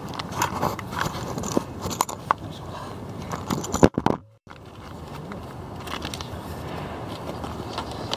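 Rustling and crackling handling noise on the camera's microphone, with scattered clicks, a sharp knock about four seconds in and a brief dropout just after it.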